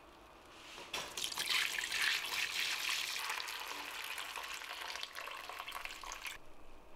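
Chicken stock poured in a steady stream from a pot into a cloth-lined strainer, splashing into the pooled broth. The pouring starts about a second in, is loudest just after, eases off, and stops abruptly near the end.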